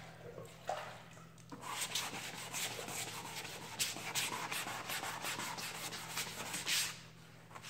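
400-grit sandpaper on a hand sanding block rubbed back and forth over primer on a car body panel, block-sanding the primer smooth to take out the scratches that the guide coat shows. The strokes start about a second and a half in, come about three a second, and stop near the end.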